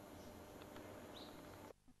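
Near silence: faint outdoor ambience with a single short bird chirp about a second in. The sound cuts out abruptly near the end.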